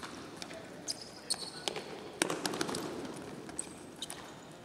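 Futsal ball being kicked and rubber-soled shoes squeaking on a sports-hall court. A run of sharp kicks about half a second apart, the loudest about two seconds in, followed by a brief rush of noise.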